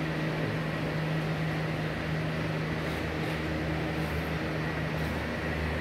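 A steady mechanical hum with a faint hiss, unchanging throughout.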